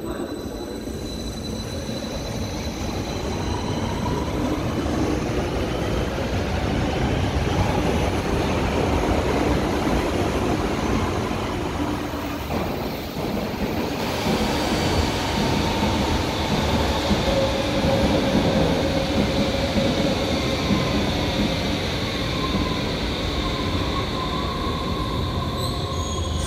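Berlin U-Bahn trains moving along the platform: electric traction motor whine rising in pitch as one train pulls away, then another train running in with wheel squeal and rail noise.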